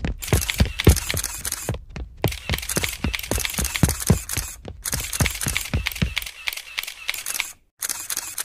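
Footsteps sound effect: a quick run of sharp steps, about four or five a second, in three stretches separated by brief pauses.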